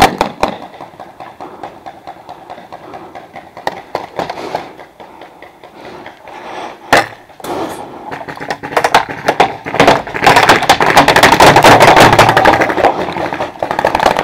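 Paintball pistols firing. A few quick shots at the start, then scattered single shots, then dense rapid fire that builds from about eight seconds in and is loudest near the end.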